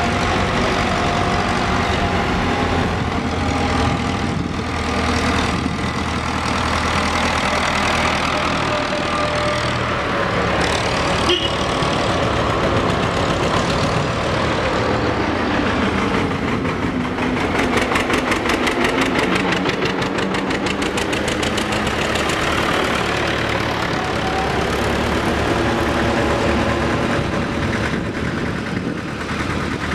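Engines of several vintage farm tractors running as they climb a hill road and pass by. The fast, even engine beat is loudest a little past the middle.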